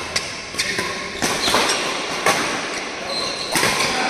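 Badminton racket strings hitting a shuttlecock during a fast doubles rally: several sharp hits, echoing in a large hall. A brief high squeak comes around three seconds in.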